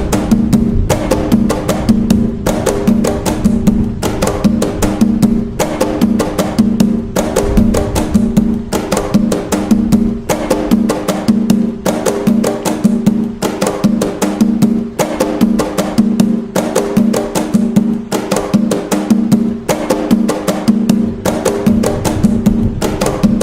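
Atabaque hand drums playing the Umbanda nagô rhythm (toque nagô): a continuous, fast, evenly repeating pattern of pitched drum strokes.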